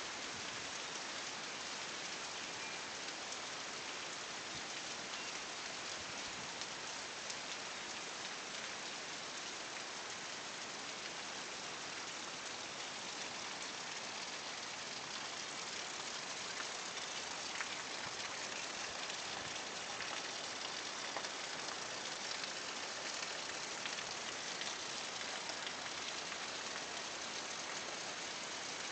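Steady rain falling, a dense hiss with many small drops ticking, growing slightly heavier past the middle.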